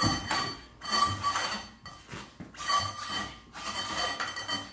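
Rubber excavator track being pushed and worked by hand onto the undercarriage. It scrapes and knocks against the steel frame and sprocket, with short rubbing and clinking bursts every second or so and a faint metallic ring between them.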